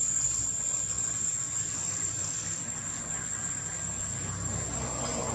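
A steady, high-pitched insect drone, with a low rumble underneath that grows a little louder near the end.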